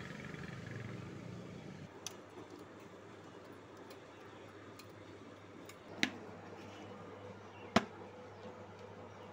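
A few short, sharp clicks from hands handling tools and parts during tractor servicing: three separate clicks, the loudest near the end, over a faint steady hum.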